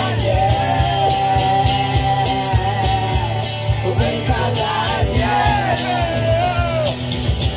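Live rock band playing: a singer's melody over acoustic and electric guitars and a steady beat.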